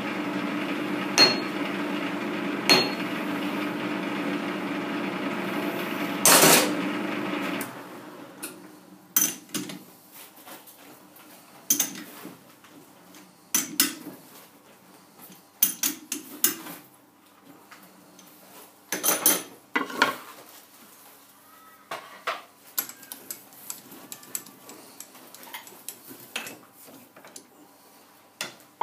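A hammer taps a workpiece held in a metal lathe chuck twice with a sharp ringing knock, over a steady motor hum. A louder clunk comes about six seconds in, the hum stops shortly after, and then scattered metallic clanks and knocks follow as the chuck and part are handled.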